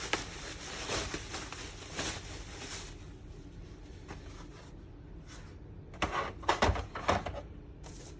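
Plastic diorama parts being handled and set down, with scattered light clicks and knocks. A cluster of louder knocks comes about six to seven seconds in.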